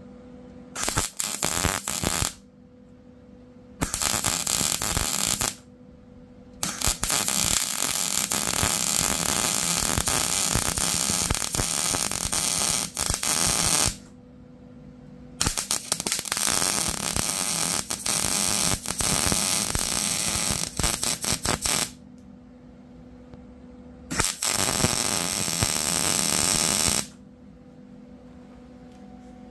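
Wire-feed welder arc crackling as a steel plate is welded onto a mower deck, in five runs: two short ones, two long ones of about seven seconds each, and a short one near the end. A steady low hum fills the pauses between runs.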